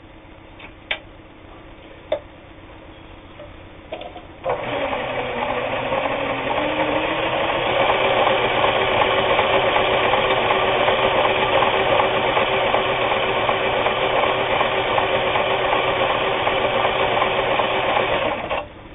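Kenmore 158.19802 sewing machine sewing a built-in decorative stitch pattern. Two sharp clicks come first. About four and a half seconds in, the machine starts and speeds up, then runs steadily at speed and stops abruptly just before the end.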